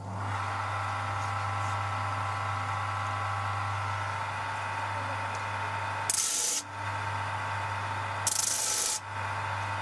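Electric bench grinding machine with a sanding drum switched on and running with a steady hum. Twice, about six and about eight seconds in, a wooden knife-handle scale is pressed against the abrasive drum, giving brief, loud rasping sanding sounds as its flat faces are levelled.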